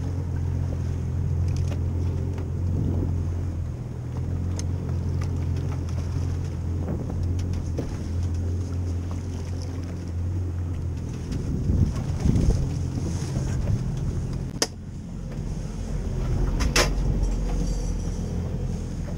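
Boat's outboard motor idling steadily, with wind on the microphone. Near the end come two sharp knocks on the boat.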